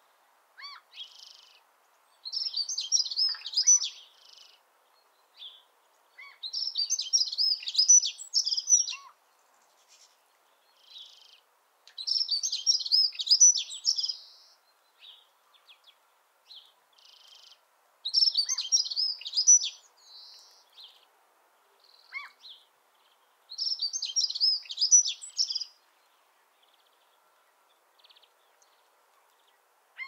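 Dunnock (hedge accentor) singing: five short, high, fast warbling phrases of about two seconds each, repeated every five to six seconds, with softer single notes between them.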